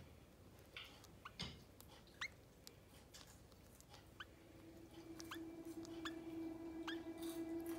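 Canaries giving short, faint chirps, each a quick upward sweep, scattered about one or two a second. About halfway through, a steady low hum-like tone comes in beneath them.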